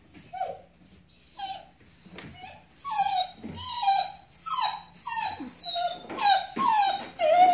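Four-week-old puppy whining: a string of short, falling whines, about two a second, growing louder from about halfway through.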